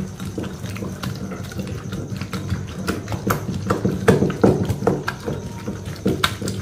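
Granite pestle rolling and knocking against the stone bowl of a traditional aattu ural wet grinder as wet spinach chutney is ground by hand. A low grinding rumble with irregular stone-on-stone knocks.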